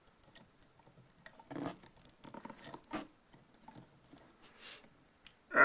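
Faint, irregular scraping and clicking of solid copper electrical wires being twisted together by hand into a pigtail.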